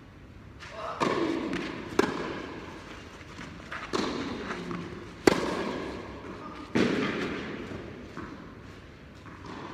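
Tennis rally in a reverberant indoor hall: racquets strike the ball five times, back and forth about once every one to one and a half seconds, each hit ringing in the hall. The strikes alternate between sharp clicks and fuller, longer hits, which have grunts with them.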